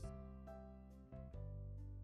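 Quiet background music: a few held notes that change about every half second.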